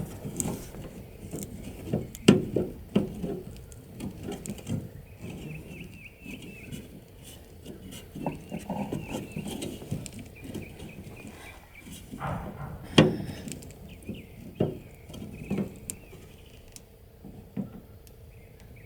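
Scattered knocks, clicks and scraping of hard plastic as the bezel on a truck's tailgate latch handle is pried and worked loose by hand. The loudest knocks come about 2 seconds in and again about 13 seconds in.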